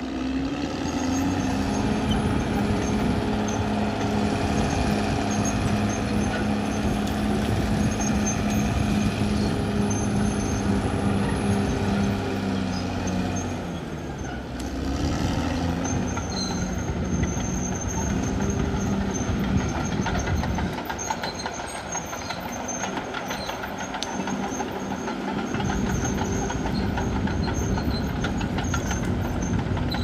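Caterpillar D6R XL crawler bulldozer at work: its diesel engine runs steadily under load, eases off about halfway through, then revs back up. The clank and rattle of its steel tracks runs beneath the engine.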